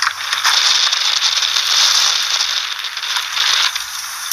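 Heavy rain pelting a vehicle's roof and windshield in a dense patter of many small hits, suddenly louder at the start and loudest around the middle.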